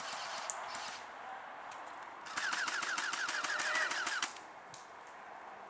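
Airsoft rifle firing one fully automatic burst of about two seconds, a rapid string of clicking shots, starting about two and a half seconds in.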